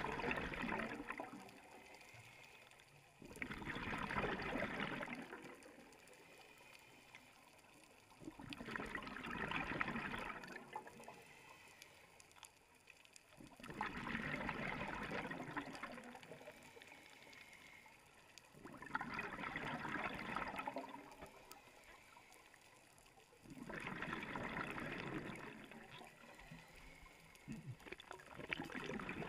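Scuba diver breathing through a regulator underwater: each exhalation releases a burst of bubbles through the exhaust valve lasting about two seconds, repeating about every five seconds, with quieter inhalations between.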